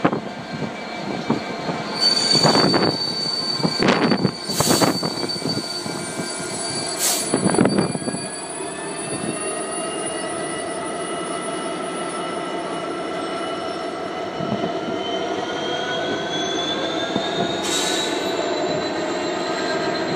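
Class 66 diesel-electric freight locomotive and its wagons slowing to a stop: high wheel squeal and a few short loud hisses in the first half. Then the locomotive's engine runs steadily with a whine that slowly rises in pitch near the end.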